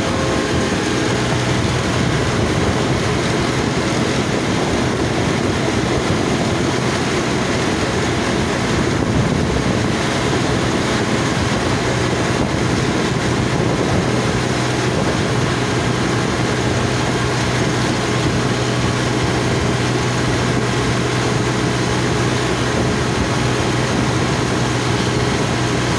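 Massey Ferguson 7250 DI tractor's three-cylinder diesel engine running steadily under way on the road, heard from the driver's seat, its hum holding one pitch throughout.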